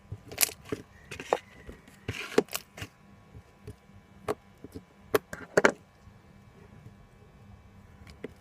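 Glitter slime being squeezed and stretched by hand, giving a run of sharp clicks and pops from trapped air, irregularly spaced, with a close cluster about five and a half seconds in, then quieting for the last couple of seconds.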